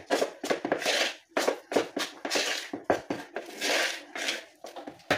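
A hand mixing a wet flour-and-buttermilk dough in a plastic bowl: irregular squeezing and rubbing strokes, about two a second.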